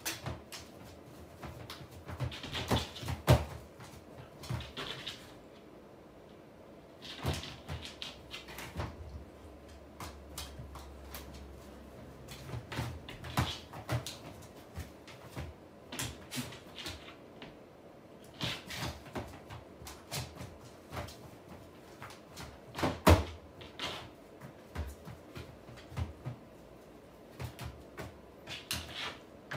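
Shiba Inu's paws and claws tapping and knocking on a plastic pet-toilet tray and pee pad as it circles and hops before pooping: scattered clicks with a few louder thumps, the loudest about three seconds in and again about twenty-three seconds in.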